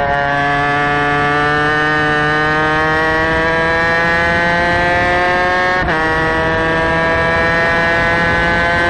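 Superkart's two-stroke racing engine heard onboard at full throttle, its pitch climbing steadily as it revs up. About six seconds in, the pitch drops sharply on an upshift, then climbs again in the next gear.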